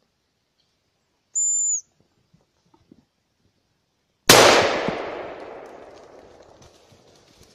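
A single high, thin whistle about a second and a half in, like the call of a hazel grouse. Then one loud gunshot about four seconds in, its echo dying away over about three seconds.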